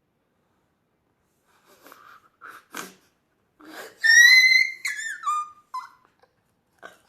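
A few short taps, then about four seconds in a loud, high whistle-like squeak that slides down in pitch over about a second, followed by a few shorter squeaks.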